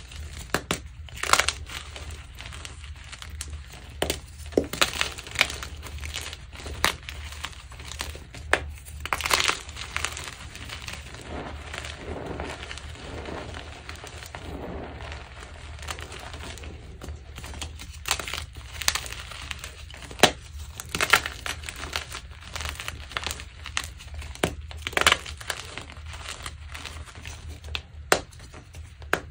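Pink-dyed gym chalk being crushed: irregular crunching and crumbling, with a sharper snap now and then.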